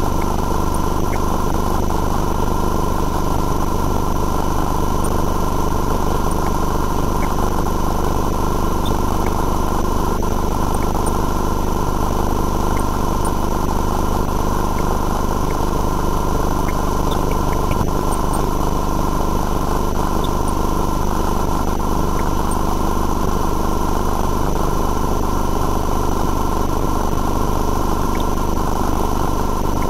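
Steady, unchanging machine hum with several constant high-pitched whines, from the sewer CCTV inspection equipment running while the camera crawls through the pipe.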